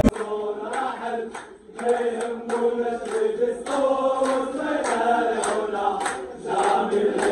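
A room of football supporters singing a chant together, with sharp claps in time with the chant. The chant dips briefly about one and a half seconds in, then goes on.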